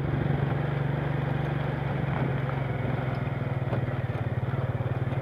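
Motorcycle engine running at a steady, even pitch while the bike rolls along a rough dirt road, heard from the rider's seat.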